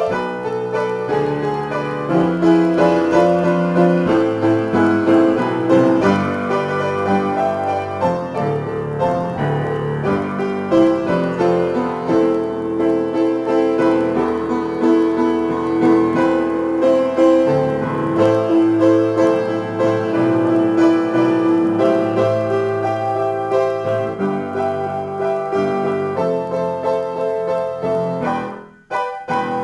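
Upright piano played as a free improvisation in A minor, a steady flow of notes over held chords. It breaks off for a moment shortly before the end, then the playing picks up again.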